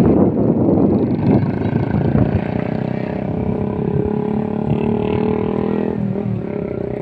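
A vehicle engine running steadily under wind buffeting on the microphone. The engine's hum is clearest from about two and a half seconds in and fades about six seconds in.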